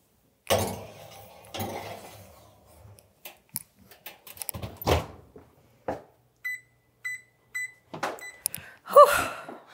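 Clunks and rattling as the glass baking dish goes onto the oven rack and the oven door is shut. Then the oven beeps three times, short and about half a second apart. Near the end there is a short loud pitched sound.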